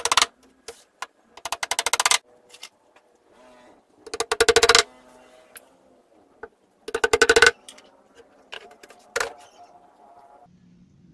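Hammer rapidly tapping small nails through plywood into a wooden door frame, in four quick runs of strikes with a few single knocks between them.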